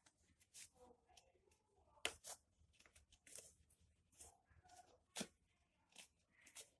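Near silence broken by faint, scattered rustles and clicks as a basketball sneaker is handled and put on, with a few sharper taps about two seconds in and again near the end.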